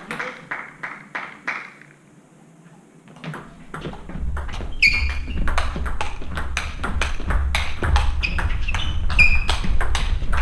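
Table tennis ball clicking off rackets and table: a few bounces at first, a short lull, then from about four seconds in a fast rally with quick, even clicks. Two brief shoe squeaks on the court floor come during the rally.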